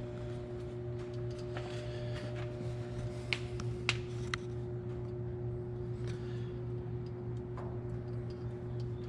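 Steady low hum, with a few light metallic clicks between about three and four and a half seconds in as a wire is worked inside a diesel injection pump to fish out a dropped timing lock pin.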